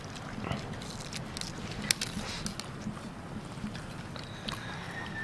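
Men eating pulao from steel plates: scattered small clicks and clinks of plates and food being handled, with one sharp click about two seconds in, over a low steady background noise.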